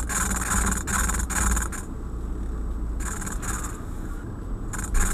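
Glitching Audi Sound System car audio playing a harsh rhythmic rasping noise through the speakers, pulsing a couple of times a second, instead of radio or music. It breaks off for about a second midway and comes back near the end. This is the fault that the owner found on every station and on the flash drive.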